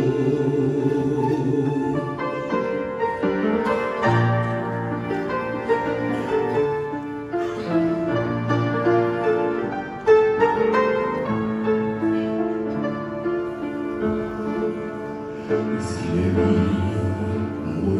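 Instrumental interlude of a slow hymn-style song, with sustained keyboard chords and melody notes changing every second or so. Singing comes back in about two seconds before the end.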